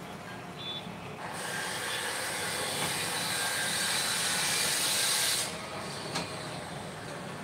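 A steady hiss that starts about a second in, swells slightly, and cuts off suddenly after about four seconds, over a low background hum.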